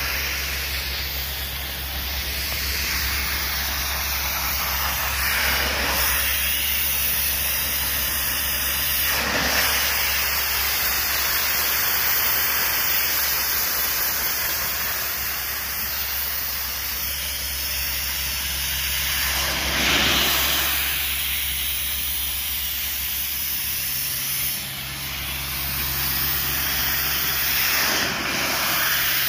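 Pressure-washer lance jetting water at close range onto stone paving slabs to blast off chewing gum: a steady loud hiss of spray, with a steady low hum underneath and the spray swelling briefly a few times as the lance moves.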